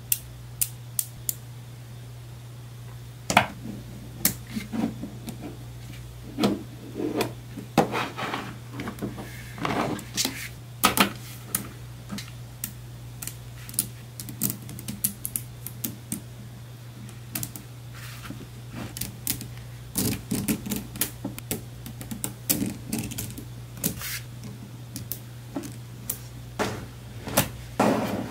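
Small neodymium magnetic balls clicking and snapping together as they are handled and pressed into place, in irregular sharp clicks and quick runs of clicks, over a steady low hum.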